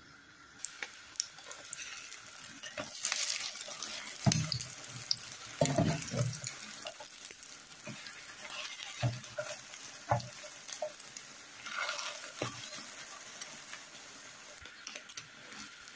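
Egg and parsley omelette frying in hot oil in a pan: a steady sizzle, with a few knocks and short scrapes of a utensil as the omelette is broken up and turned.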